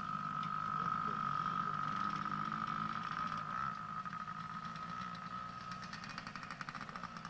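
Small engine of a child's minibike running with a steady high whine over a low rumble. The whine eases off after about four seconds, and a fast rattling pulse comes in near the end.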